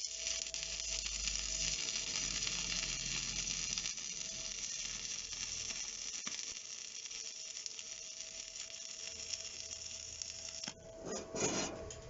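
Stick welding: an electrode rod arcing steadily on steel, cutting out about ten and a half seconds in. A few sharp knocks follow near the end.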